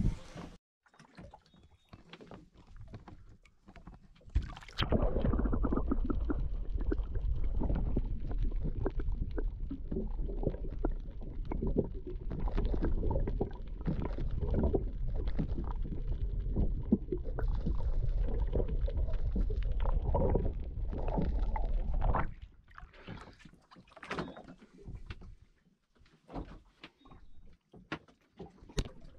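Small boat underway: a loud, steady rumble of motor, wind and water that starts abruptly about four and a half seconds in and cuts off about four-fifths of the way through. Faint scattered clicks and knocks come before and after it.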